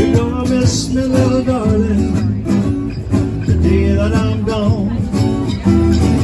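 Live blues band: two acoustic guitars strummed while a man sings into a microphone, over steady low bass notes.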